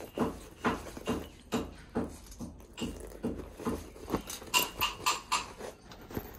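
A steady run of soft thuds, about two to three a second, a little brighter and sharper near the end.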